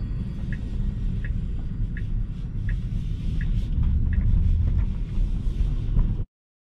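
Steady low road and tyre rumble inside a Tesla's cabin while driving, with the turn-signal indicator ticking evenly, about one and a half ticks a second. The sound cuts off suddenly near the end.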